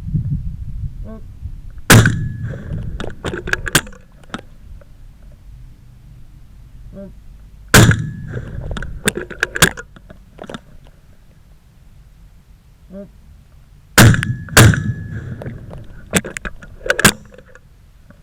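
Shotgun shots at clay targets, recorded from a camera mounted on the gun: one about two seconds in, another near eight seconds, and a pair about half a second apart near fourteen seconds. Each is followed by a scatter of smaller clicks and knocks.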